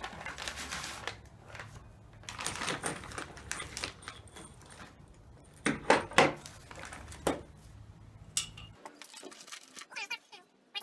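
Loose metal assembly hardware, bolts and nuts, being handled and clinking against each other, with a few sharp clicks about six seconds in.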